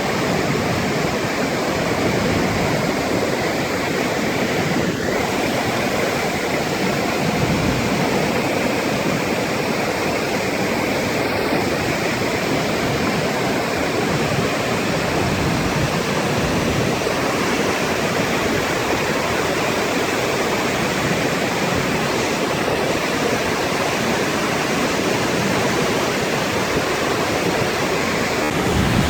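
Flash-flood water pouring down a desert canyon and over its waterfall: a loud, steady rush of water with no breaks.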